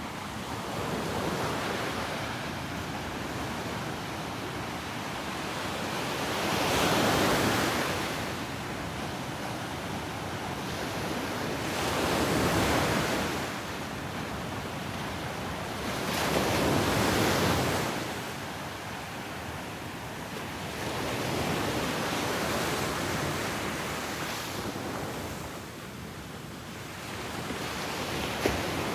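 Ocean waves breaking on a beach: a steady surf hiss with four or five waves swelling and washing out, roughly five seconds apart.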